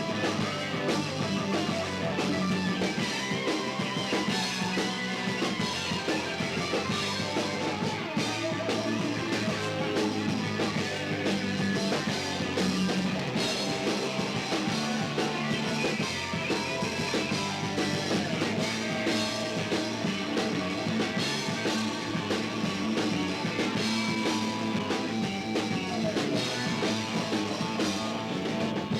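Rock band playing live: two electric guitars, bass and drum kit together in a continuous, loud passage of the song.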